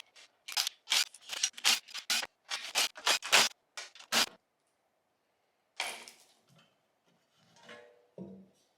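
Hand tools at work on a TH400 automatic transmission's pan bolts and line fittings: a quick run of sharp metallic clicks over the first four seconds or so, then a single sharp hit and a few duller clunks near the end.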